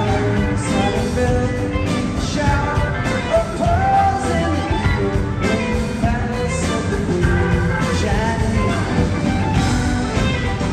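Live rock band played through a concert PA and recorded from the crowd: electric guitar, bass and drums with a singing voice, loud and steady.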